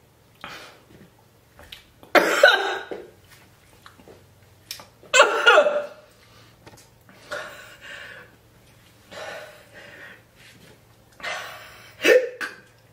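A man coughing from the burn of extremely hot scorpion pepper sauce in his throat. There are two loud coughs about two and five seconds in, with quieter breaths and short coughing sounds between them.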